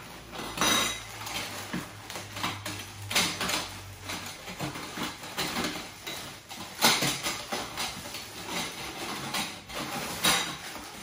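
Metal frame tubes of a 3D printer enclosure clinking and clattering against each other in irregular knocks as the bundle is handled on a table, with plastic packaging rustling near the end.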